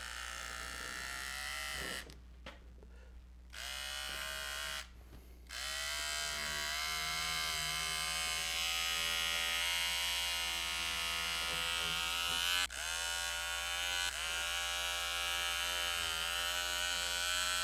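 Small electric motor of a handheld power cutter trimming excess fiberglass cloth from the edge of an epoxy-wetted paddle blade. It runs in long stretches, stopping for about a second and a half around two seconds in and briefly again a few seconds later, with its whine rising each time it starts up again.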